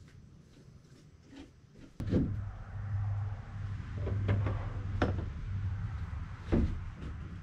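A few sharp knocks and clicks of hands handling things, over a low steady hum that starts abruptly about two seconds in.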